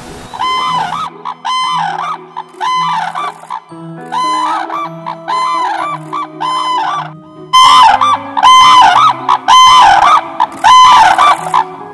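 Red-crowned cranes calling: a long run of loud, trumpeting calls in quick succession, growing much louder a little past halfway. Soft music plays faintly underneath.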